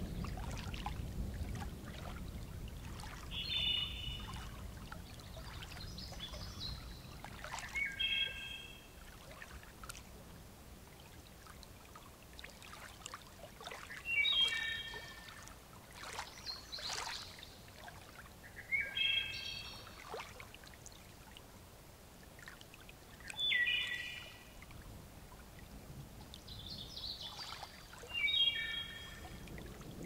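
A wilderness thunderstorm field recording: a bird gives a short call about every four to five seconds, six times, over the faint patter and drip of rain. A low rumble of distant thunder fades out in the first several seconds.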